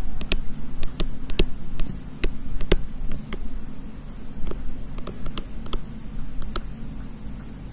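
Light, irregular clicks and taps, about two a second, from a stylus or pen writing by hand on a tablet, over a steady low hum.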